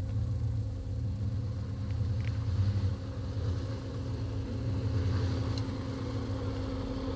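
Jeep Grand Cherokee 5.9's V8 engine running, a low rumble that swells and eases as the throttle changes.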